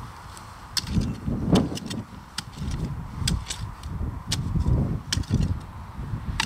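A spade chopping repeatedly into stony ground, each stroke a sharp knock about once a second, over a low, uneven rumble.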